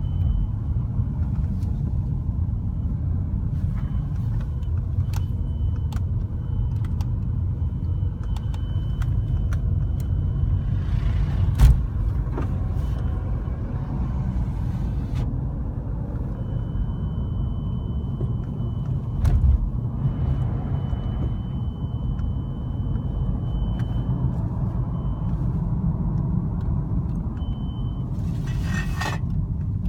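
Inside a BMW F30 320i's cabin while driving: steady road and engine rumble, with a thin high-pitched beeping tone that comes and goes in stretches of a few seconds. The beep appears when the car is restarted after about half an hour parked and lasts about five minutes, which the owner puts down to the car warming up. A couple of thumps from the road break through, and a short buzzy burst comes near the end.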